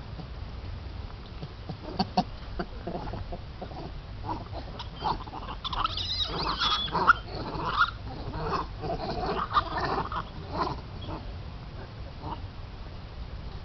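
A group of monkeys calling: many short squeaky calls, scattered at first and coming thick and fast in the middle, then thinning out again near the end.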